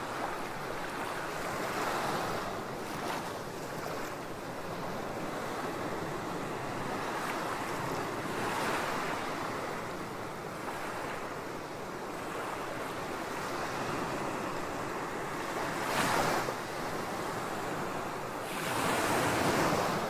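Small waves breaking and washing up on a sandy beach: a steady wash of surf that swells with each wave every few seconds, the biggest washing in near the end.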